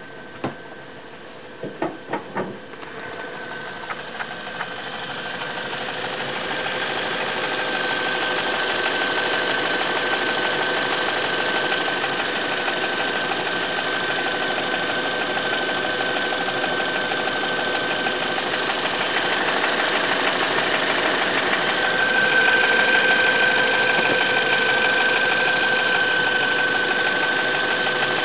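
Toyota Avensis T27's 1.8-litre petrol engine running warm with a rattle, which the owner takes for abnormal though the Toyota dealer calls it normal. A few sharp knocks in the first seconds, then the engine noise grows louder and holds steady, with a steady high tone over it.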